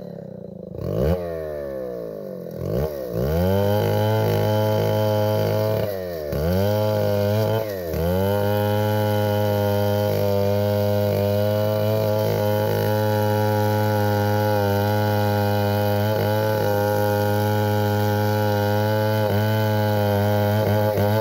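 Stihl 070 two-stroke chainsaw revving up and down over the first few seconds, dipping briefly twice, then running steadily at high speed.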